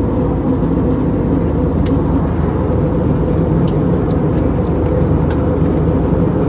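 Jet airliner cabin noise in cruise: a steady rush of engine and airflow noise with a constant low hum.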